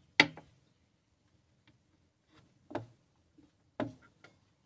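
Tableware clinking and knocking: a few sharp clinks of bowls and steel plates against a glass-topped table as dishes are handled. The loudest clink is about a quarter second in, with several lighter ones later.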